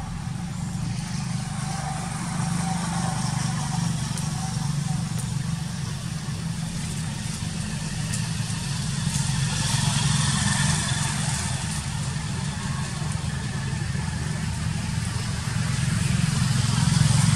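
Low, steady hum of a motor vehicle's engine running, slowly growing louder toward the end.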